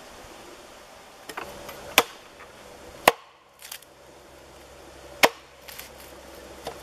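A blade chopping into wood on a log, splitting a stick into kindling: three sharp strikes about two, three and five seconds in, with a few lighter knocks between them.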